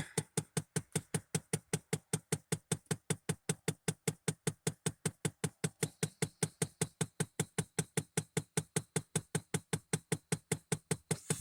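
Rapid, even clicking from the 1993 Chevy 1500 truck with the key turned on, about six clicks a second without a break, a clicking the owner cannot account for and says happens every time he turns the key on. A faint high whine joins about halfway through.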